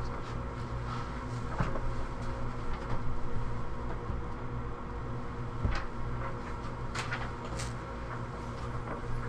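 Steady hum of running rack servers, with a few short clicks and knocks from hands handling a network cable as it is unplugged from the back of a server.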